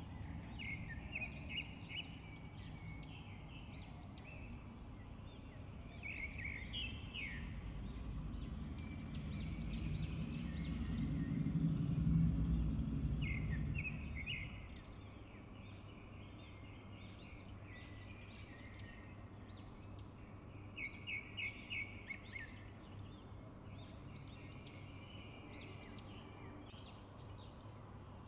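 Small birds chirping in quick runs of short high notes, over a low rumble that swells about ten seconds in and fades a few seconds later.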